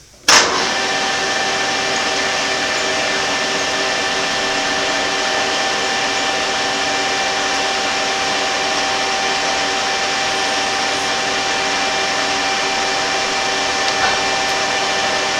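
Grizzly G0554 14x40 geared-head lathe switched on with a sudden start, then running steadily at speed with a constant whine over an even hiss.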